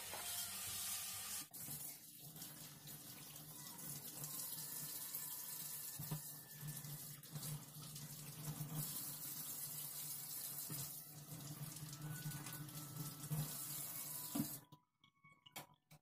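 Kitchen tap running into a stainless-steel sink as food is rinsed under the stream. The water stops near the end, followed by a few faint clicks.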